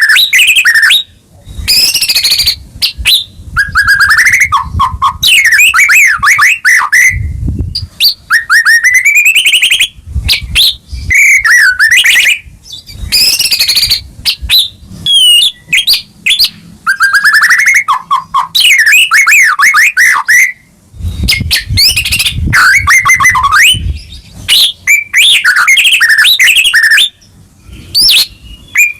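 White-rumped shama (murai batu) singing loudly in full song: varied phrases of gliding whistles, trills and fast runs of repeated notes, each phrase broken off by a short pause. A low rumble sits under a few of the phrases.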